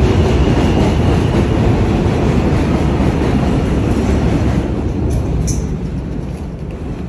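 New York City subway train running on the tracks: a loud, dense rumble that holds steady, then fades over the last two or three seconds.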